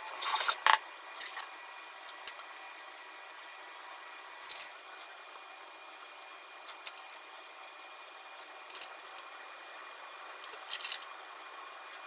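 Soft handling sounds of deep-fried tofu (abura-age) on a wooden cutting board. A brief paper-like rustle comes at the start as the sheets are set down. Then a few scattered short squishy rustles follow as the tofu is cut in half and the pouches are pulled open.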